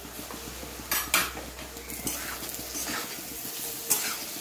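Metal spatula scraping and clinking against a steel kadai as potato sticks and chhana are stirred. Several sharp scrapes stand out, the loudest a little after a second in, over a light sizzle of frying.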